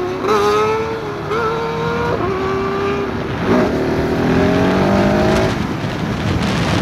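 KTM 690 SMC R single-cylinder engine accelerating on the road, its note climbing in pitch with a few breaks as it changes gear, then steadying. Near the end the throttle eases and the engine fades into wind rush.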